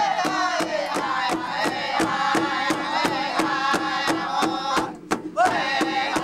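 A First Nations drum group singing together over a large drum struck in a steady beat, about three strokes a second. The voices drop out briefly about five seconds in, then a high voice leads them back in.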